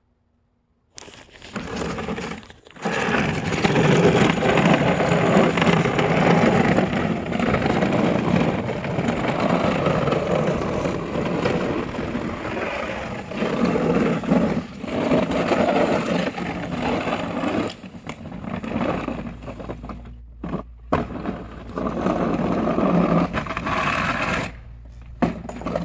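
Home-built track-driven remote-control snow plow running, its electric drive motors whirring and tracks and blade scraping through snow. The noise starts about a second in, rises and falls unevenly with a few short drops, and a low steady hum joins in about two-thirds of the way through.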